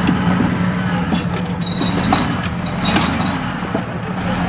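Jeep Wrangler engine running steadily at low speed as it crawls over rocks, with a few sharp knocks and scrapes from the tyres and underside on rock.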